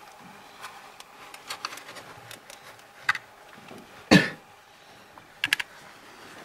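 Scattered small clicks and taps of handling, with a louder, brief knock about four seconds in and a quick run of three clicks about a second and a half later.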